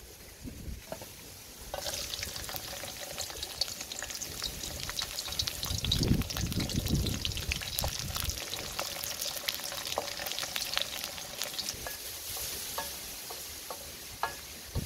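Sliced lemongrass, shallots, garlic and chillies hit hot oil in a metal wok and start sizzling suddenly about two seconds in. The frying crackles on while a wooden spoon stirs the food around the wok.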